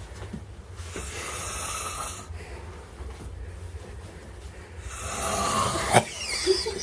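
A sleeping person snoring: two long, rasping snores about four seconds apart, with a sharp click near the end.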